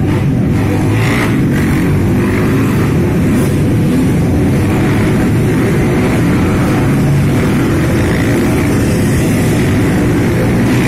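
A group of trail motorcycles riding past together, many engines running at once in a steady, loud, continuous engine noise.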